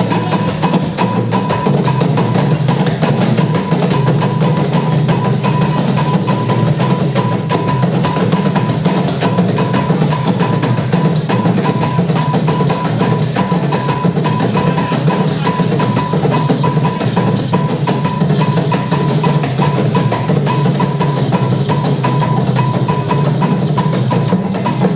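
Percussion music: fast, dense drumming with sharp knocking clicks over a steady low drum sound, and a thin steady high tone above it.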